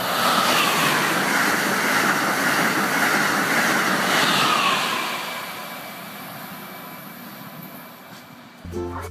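High-speed train passing at speed: a loud rushing noise with a whine that dips in pitch, swelling for about five seconds and then fading away. Music starts right at the end.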